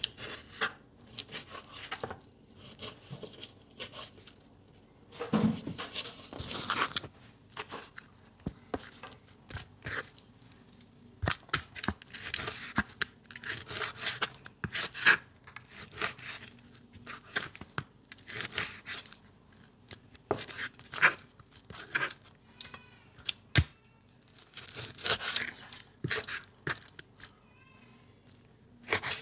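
Chef's knife slicing beef tongue on a plastic cutting board: irregular sawing strokes through the meat with sharp taps as the blade meets the board.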